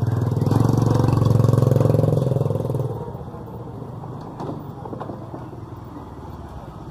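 A motorcycle engine passing close by, loudest over the first three seconds and then fading away, with a couple of short knocks after it.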